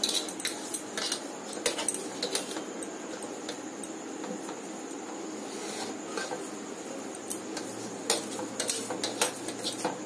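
Fresh chhana being kneaded by hand on a metal plate: scattered sharp clicks and taps against the metal, bunched near the start and again in the last few seconds, over a steady low hum.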